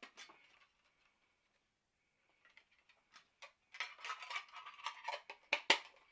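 Foil booster packs and a small metal tin being handled: a few light clicks, then, about four seconds in, a two-second run of crinkling, tapping and clicking.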